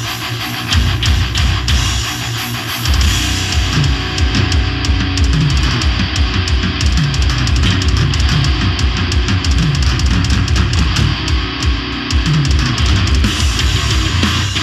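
Heavy metal music: distorted electric guitars over a fast, dense drum kit and bass, coming in hard about a second in.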